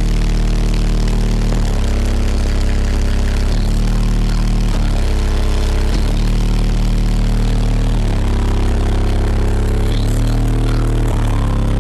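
Car audio subwoofers playing bass-heavy music very loud: deep sustained bass notes that change every second or two, at a constant level.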